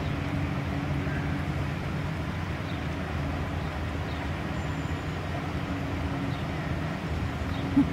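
Narrowboat's diesel engine running steadily, a low hum with a level drone. A short sharp sound near the end is the loudest moment.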